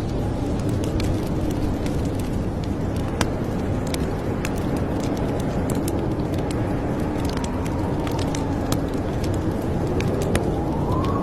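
Wood fire crackling in a fireplace: scattered sharp pops and snaps over a steady low rumble. Faint wavering tones run underneath, one rising briefly near the end.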